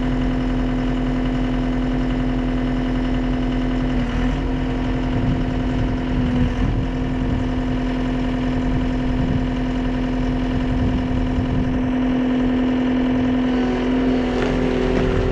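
Gehl V330 skid steer's diesel engine running steadily at a constant speed, with a strong, even drone.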